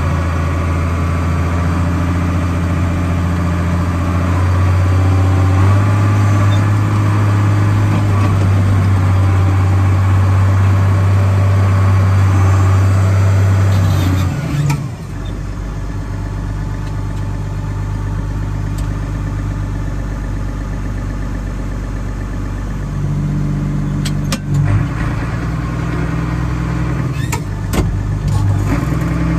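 A 1986 Ford TW5 tractor's six-cylinder turbo diesel engine running steadily, heard from inside the cab. Its note rises a little early on, then drops lower and quieter about halfway through as it throttles back, and picks up slightly again later. A few sharp clunks come near the end.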